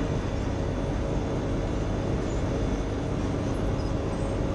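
Wirtgen asphalt milling machine running at work, heard from the operator's platform: a steady, dense mechanical rumble from the engine and the milling drum as it takes off the asphalt dike.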